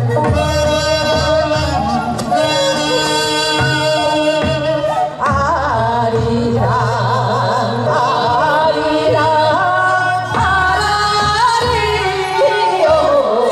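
Korean traditional folk song sung by a group of women in hanbok, their voices wavering and sliding between notes, over an amplified instrumental backing with low bass notes through a PA.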